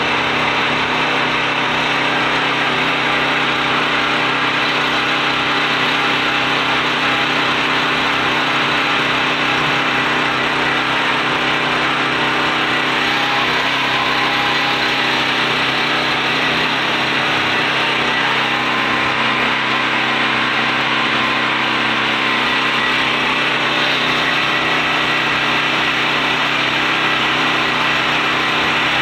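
Predator 4,000-watt portable generator running steadily at an even pitch.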